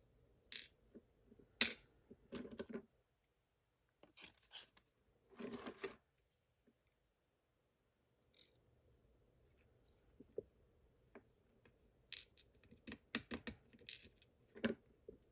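Scattered small metal clicks and clinks as pins and tools are handled while emptying a pin chamber of a pin tumbler lock, with a short scraping sound about five seconds in and a quick run of clicks near the end.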